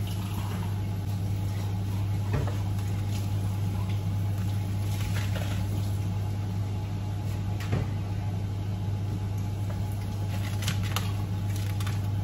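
Steady low hum of a running kitchen appliance, with a few light knocks from kitchen work scattered through it.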